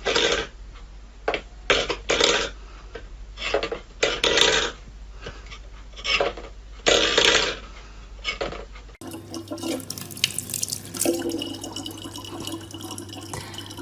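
Water splashing in irregular bursts, as from a tap into a sink. About nine seconds in, the sound changes to quieter, steadier running water with a low hum underneath.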